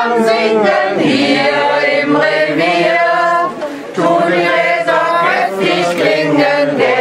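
A mixed group of men and women singing a German song about beer together in chorus, with a short breath pause a little past halfway.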